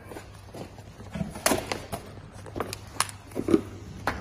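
Scattered knocks and clicks, about six over four seconds, of people handling the table frame and its cardboard packing during assembly.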